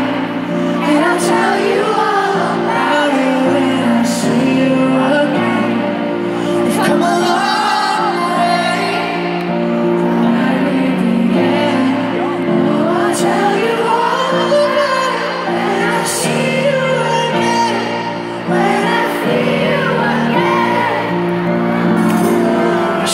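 Live piano chords with a singer's voice over them, ringing in a large arena, with audience voices singing along and whooping.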